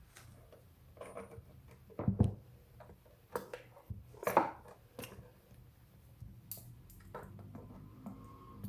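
Metal parts and tools being handled on a workbench: scattered clinks and knocks with quieter rustling between them, the loudest about two and four seconds in.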